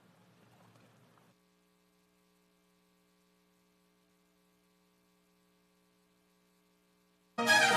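Near silence with a faint steady electrical hum. Music cuts in suddenly near the end.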